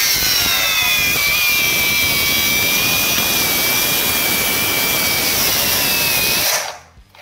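HPT cordless angle grinder with a cut-off wheel cutting through a steel bar: a loud high whine over gritty cutting noise, dropping in pitch as the wheel bites and then holding steady. Near the end it stops abruptly as the grinder shuts itself off, which is put down to its overload cut-out.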